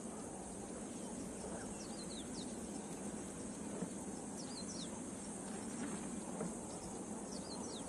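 Dry-season bush ambience: a steady high insect drone, with short falling bird chirps, often in pairs, recurring every second or two.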